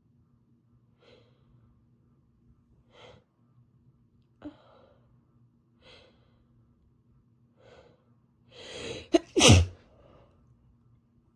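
A woman with a head cold sneezing after a long buildup. Five faint catching breaths come about every one and a half seconds, then a longer gasping inhale and one loud sneeze about nine and a half seconds in, with a soft breath out after it.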